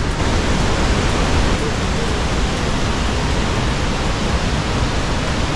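Large waterfall's falling water making a loud, steady, even rush with no let-up.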